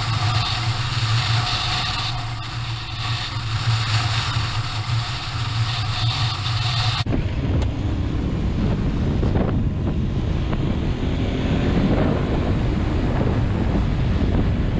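Adventure motorcycle engine running steadily under way, with wind noise on the microphone. About halfway through the sound cuts abruptly to a heavier wind rumble, with the engine note faintly rising and falling beneath it.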